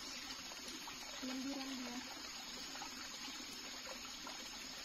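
Steady trickle of running water. A faint short voice is heard about a second and a half in.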